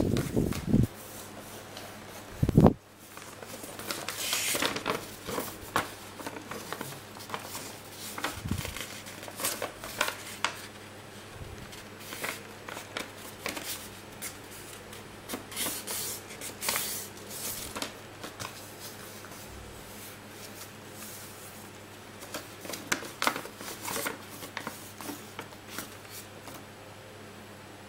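A sheet of white paper being handled and folded by hand: rustling and crinkling, with short scrapes as fingers run along the creases. Two low thumps come in the first three seconds.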